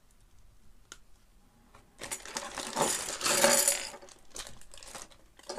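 Small hard plastic Lego pieces tipped out of a plastic bag, clattering and skittering onto a wooden tabletop for about two seconds, with the bag crinkling. A single faint click comes about a second in.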